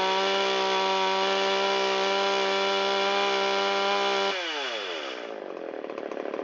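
Shindaiwa 360 two-stroke chainsaw engine held at full throttle with no load, running at a high, steady pitch. About four seconds in the throttle is let go and the revs fall away, back to a low pulsing run. This is a test of how it runs after its carburetor idle mixture was turned leaner a quarter turn.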